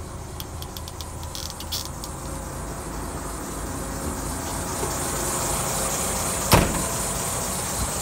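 DAF XF106's Paccar MX-13 six-cylinder diesel idling steadily in neutral, growing slowly louder, with a few light clicks in the first two seconds and a single heavy thump about six and a half seconds in.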